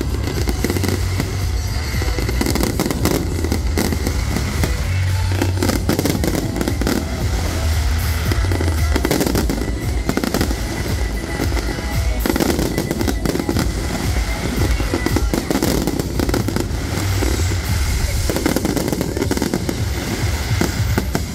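Fireworks barrage: aerial shells bursting and crackling in quick, continuous succession, with music playing underneath.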